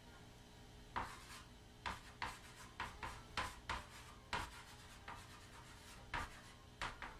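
Chalk writing on a wall-mounted chalkboard: a dozen or so short, irregular strokes, starting about a second in and stopping just before the end.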